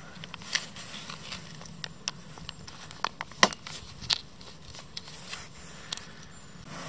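Scattered sharp crackles and pops from a hot aluminium Trangia mess tin of spaghetti as cream sauce is squeezed in from a plastic pouch, which crinkles in the hand. The loudest pop comes about halfway through, over a low steady hum.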